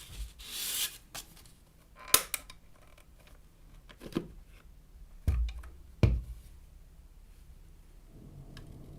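Plastic parts of a Parkside PHSSA 20-Li A1 handheld vacuum cleaner being handled and opened to get at its filter: a short scrape, sharp plastic clicks, and two dull thumps about five and six seconds in.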